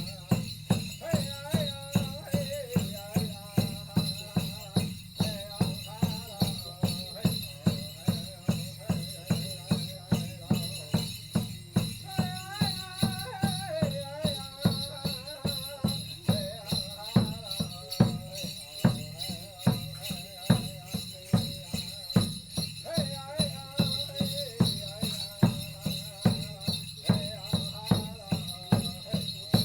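Drum song: a drum struck steadily about twice a second under one voice singing a wavering melody, with a steady bright jingling.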